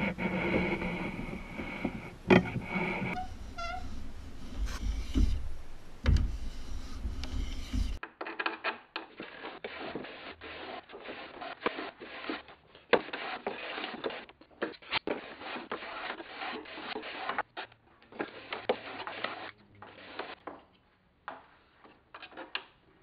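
Shoulder plane taking fine shavings off the edges of western red cedar strips: a run of short, irregular scraping strokes, with a sharp knock about two seconds in.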